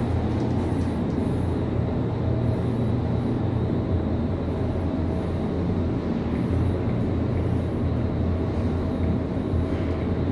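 Inclined elevator cab travelling along its sloped track, heard from inside the cab as a steady low hum and rumble.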